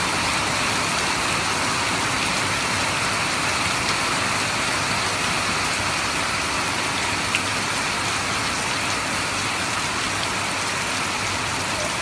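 Heavy rain falling on a car's roof and windscreen, heard from inside the moving car as a steady hiss, with a sharp tick about seven seconds in.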